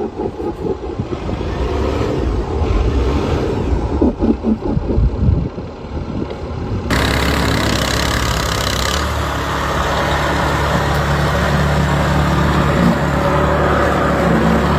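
Gusty wind buffeting the microphone amid street noise, then, about seven seconds in, an abrupt switch to the steady hum of a vehicle engine running close by, with a rushing hiss for a couple of seconds.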